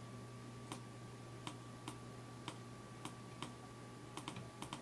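Sharp, irregular clicks at a computer editing station, about one to two a second and coming faster near the end, over a steady low electrical hum.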